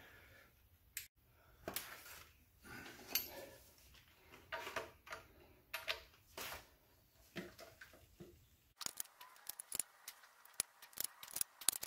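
Torque wrench and socket being worked on the flywheel bolts, giving scattered metallic clicks and knocks, then a dense run of quick clicks over the last few seconds.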